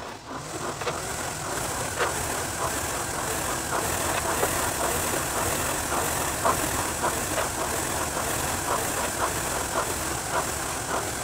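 Rowing machine being rowed: a steady whirring hiss with quick clicks, about two or three a second.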